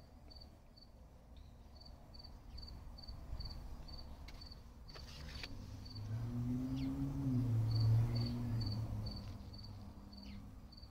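A wooden spatula scraping and tapping faintly in a nonstick wok of dry stir-fried spiny gourd, under a cricket's chirping in runs of about three pulses a second. A low hum swells in the middle and fades away.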